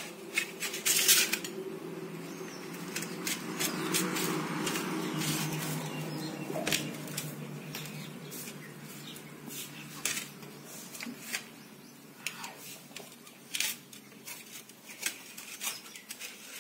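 Kitchen knife cutting through a papaya on a steel plate: scattered small clicks and knocks as the blade and fruit touch the metal plate.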